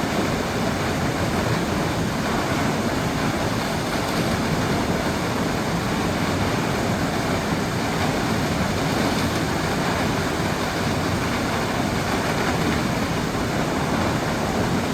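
North Falls, a 136-foot waterfall, plunging with a steady, even rush of falling water.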